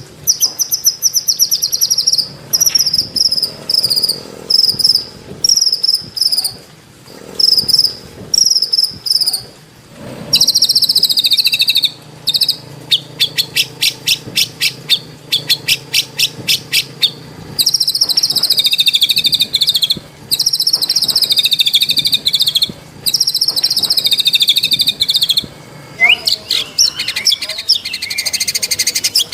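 White-rumped shama (murai batu) singing a long, varied song. It opens with short repeated high whistles separated by brief pauses, then breaks into a long, very rapid trill. It follows with longer falling whistled phrases and gliding notes near the end.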